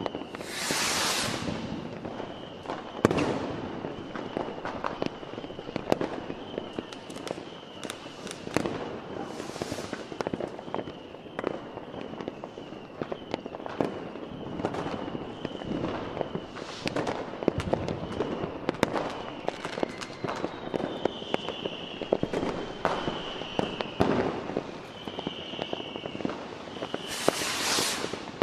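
Aerial fireworks display: a steady run of shell bursts, bangs and crackles, with a hissing crackle stretch about a second in and another near the end.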